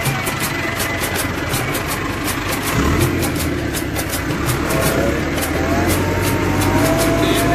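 Massey Ferguson 385 tractor's four-cylinder diesel engine running while driving; about three seconds in it becomes louder and deeper.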